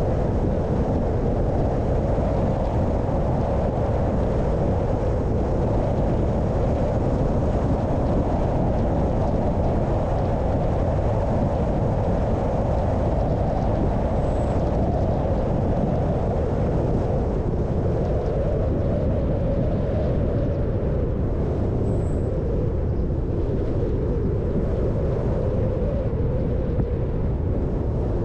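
Car driving steadily along a road: continuous engine and tyre noise with a low rumble, unchanging throughout.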